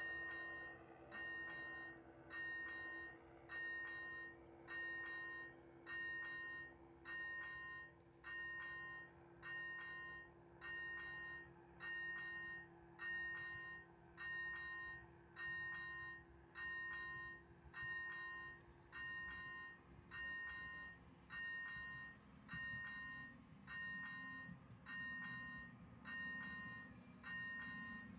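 Railway level-crossing warning bell ringing steadily, a bright electronic ding about once a second, sounding while the crossing's red lights flash. A low rumble builds over the last several seconds.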